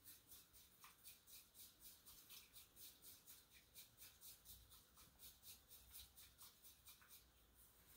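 A bamboo tea whisk (chasen) whisking thin matcha in a tea bowl: a faint, fast, even brushing rhythm of about five strokes a second that stops near the end.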